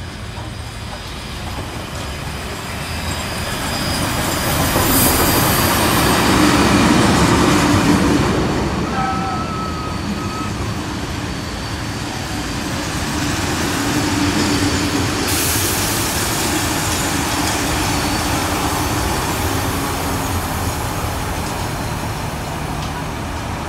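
A steam locomotive hauling heritage passenger carriages passes close by. It is loudest about five to eight seconds in as the engine goes past, then the carriages roll by with steady wheel-on-rail noise.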